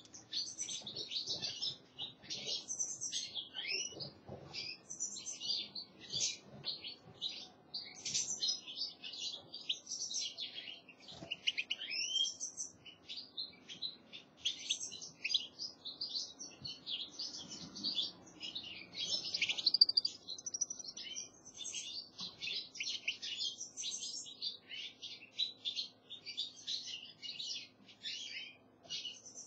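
European goldfinches twittering and chirping without a break: a fast stream of high chirps mixed with short rising whistles.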